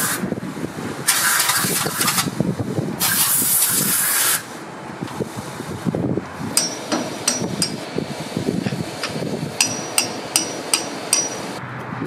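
Compressed air from a hose blasting out in two bursts of about a second each, blowing packed wood chips out of the blade-bolt holes of a drum wood chipper. This is followed by a run of sharp metallic clicks and ticks, a few a second.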